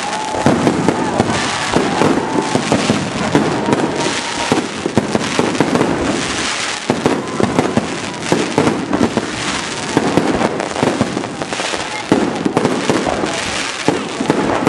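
Aerial fireworks display: shells bursting one after another in a dense, unbroken run of bangs and crackles.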